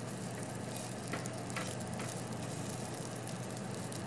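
Scrambled eggs sizzling softly in a small nonstick frying pan as a silicone spatula stirs them, with a few light spatula taps against the pan in the middle.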